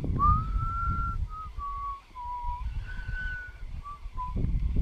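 A person whistling a slow tune: a string of clear notes, the first sliding up and held, then shorter falling notes and another long high one, over a low rumble.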